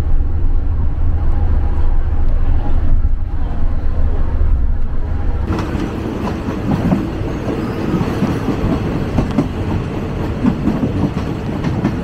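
Low engine and road rumble inside a moving minibus. About halfway through it cuts to a passenger train rolling along, its wheels clattering over the rails.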